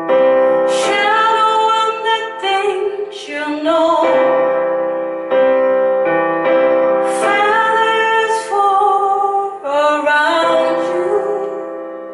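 A song performed live: a woman sings long held phrases over piano-like keyboard chords.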